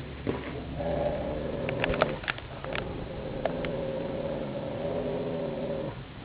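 A Rottweiler making one long, steady, drawn-out vocal sound, with a few sharp clicks partway through.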